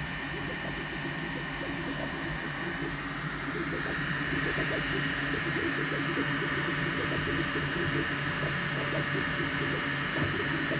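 Elegoo Neptune 4 Pro 3D printer running, its motors and fans whirring, with a steady high-pitched squeak that grows louder about four seconds in.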